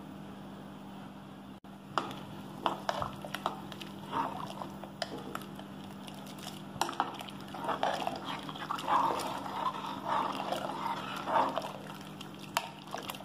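Steel ladle stirring rice and vegetables through hot water in an aluminium pressure cooker: liquid sloshing, with the ladle knocking against the pot's sides, over a steady low hum.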